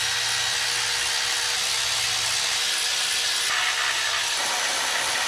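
A power tool running steadily: a loud, even hiss with a faint low hum, without a break.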